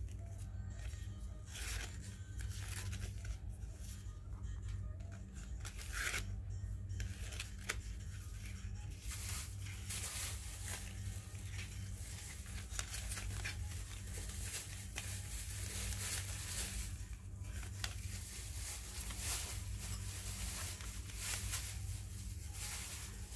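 Ribbon and a plastic bow-making board being handled: irregular rustling and scraping as the layered bow is pinched and tied, over a steady low hum.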